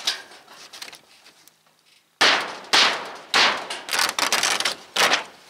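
Rusted, rotted sheet-metal roofing being torn and broken away with a hammer and gloved hands. About two seconds in come a series of loud crackling, crunching bursts as the thin, rust-eaten metal breaks up and comes off in pieces.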